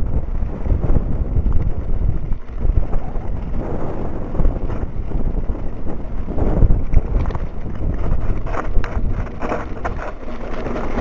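Wind buffeting the microphone of a camera riding on a mountain bike at speed, over the rumble of knobby tyres on loose gravel, with clusters of knocks and rattles from the bike about eight to ten seconds in.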